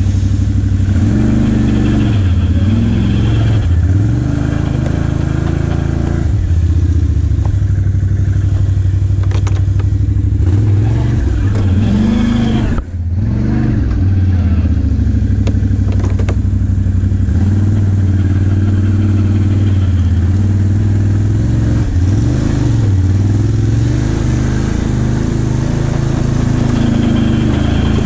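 ATV engine running under load, its pitch repeatedly rising and falling as the throttle is opened and eased off over rough ground. The engine drops briefly about thirteen seconds in.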